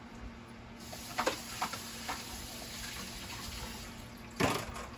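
A steady hiss of water starts about a second in, with a few light clicks just after and one sharp knock near the end.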